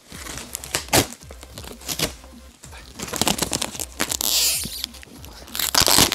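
Cardboard shipping box and its plastic packing wrap being pulled and torn open by hand: rustling, crinkling and sharp cardboard clicks. There are two louder bursts of crinkling, one about four seconds in and one near the end.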